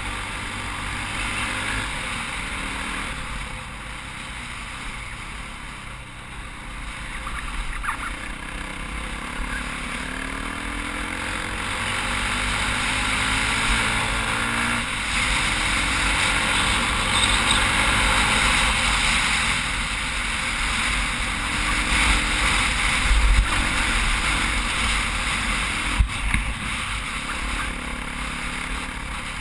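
KTM 450 single-cylinder four-stroke dirt bike engine running under way, its pitch rising and falling with the throttle, under a rush of wind and tyre noise on gravel that grows louder in the second half. A couple of sharp knocks come through near the end.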